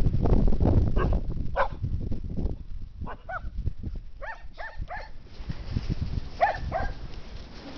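Dog giving short, high yips and barks, about nine in small groups of one to three, with low rumbling noise under the first two seconds.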